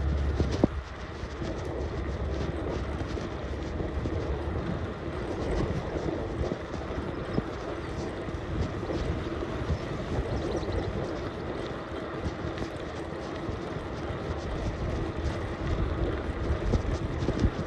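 Steady rolling noise of a bicycle being ridden, with a brief low rumble in the first second.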